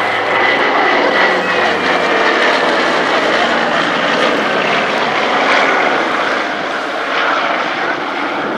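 Consolidated PBY-5A Catalina flying past low, its two Pratt & Whitney R-1830 Twin Wasp radial engines and propellers making a loud, steady drone as it banks away.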